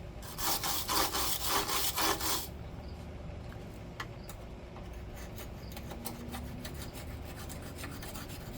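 Hand scraping of caked-on road grime off a motorcycle. It starts with a quick series of loud rasping strokes, about a half dozen in two seconds, then goes on as lighter, softer scraping with a few sharp clicks.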